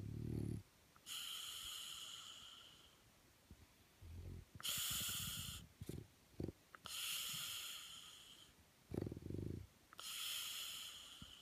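French bulldog snoring in its sleep: a short low snore alternating with a longer hissing, whistling breath, repeating about every three seconds.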